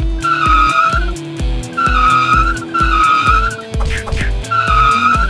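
Four short tire-screech sound effects, each about half a second, over background music with a steady beat of about two thumps a second.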